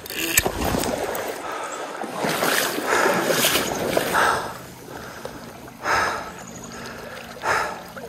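Shallow, gravel-bottomed stream running and splashing close to the microphone, with some wind rumble near the start. Several short puffs of noise come about every second and a half.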